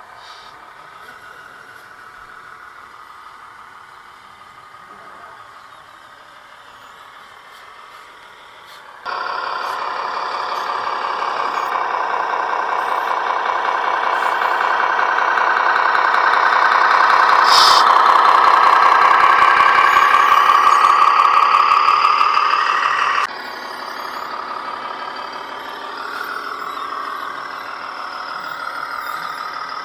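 Radio-controlled 8x8 MAN scale trial truck driving over the course, its motor and drivetrain sound steady. It is fairly quiet at first, turns abruptly louder about a third of the way in, swells, and drops back abruptly a few seconds before the end.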